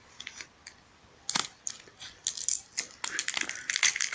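Crinkling and clicking of thin plastic protective film being peeled and handled on an Amazon Echo Dot's hard plastic body. There are a few faint clicks at first, then the crackling turns busy and louder from about a second in.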